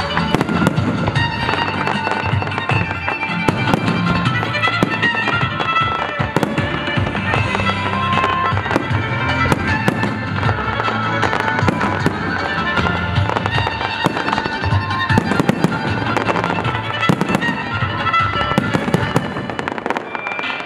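A fireworks display with shells bursting and crackling in quick succession, many sharp bangs, and music playing throughout.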